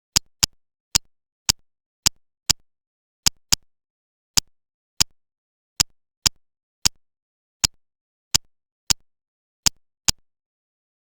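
Plastic building bricks clicking as they are pressed together: a run of about eighteen sharp single clicks at uneven intervals, roughly one or two a second, with dead silence between them.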